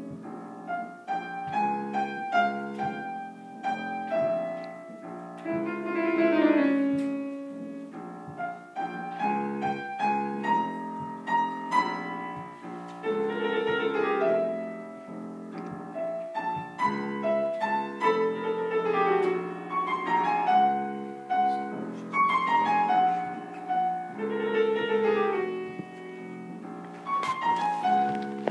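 Grand piano playing a solo classical passage of chords and repeated descending runs, with the trombone resting.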